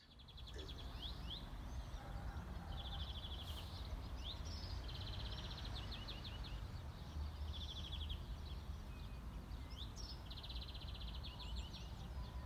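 Songbirds singing outdoors: a bird repeats a fast, even trill in about five bouts, some ending in sweeping notes, with scattered chirps between them, over a steady low rumble.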